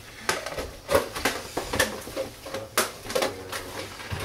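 Intermittent kitchen clatter: scattered clicks and light knocks of jars and utensils being handled on a benchtop.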